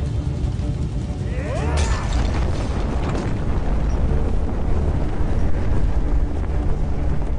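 Dramatic film score with a deep, rumbling low end and a rising sweep about a second and a half in.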